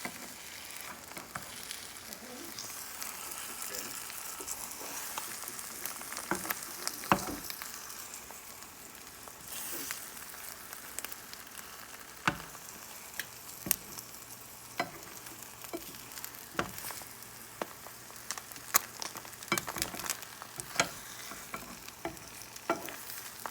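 Eggs sizzling steadily in a frying pan as an omelette cooks, with scattered sharp clicks and taps of a utensil against the pan.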